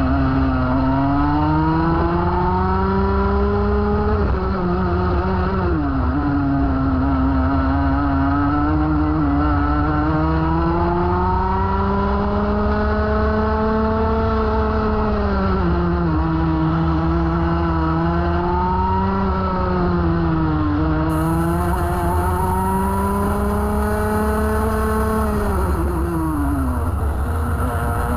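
Senior Rotax kart's 125cc two-stroke engine heard onboard at racing speed, its note climbing steadily along the straights and dropping sharply about four times as the driver lifts for corners, then picking up again. A steady low rumble from wind on the microphone lies under it.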